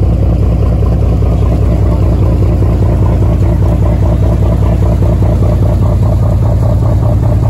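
Sportfishing boat's engine running steadily under way, a loud, even low drone.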